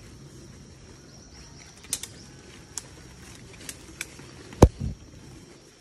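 Jungle ambience: a steady high insect drone, with a handful of sharp clicks through the middle and a louder low thump about three-quarters of the way in, followed by a softer one.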